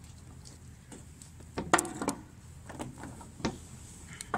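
A fishing magnet and the scrap iron stuck to it clacking and knocking as it is hauled in: a short run of sharp knocks, the loudest a little under two seconds in, and a last one near the end.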